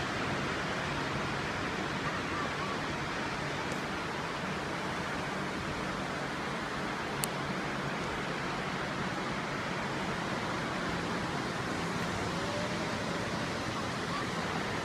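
Distant ocean surf heard from high above the beach, a steady, even wash of noise. There is a single brief click about seven seconds in.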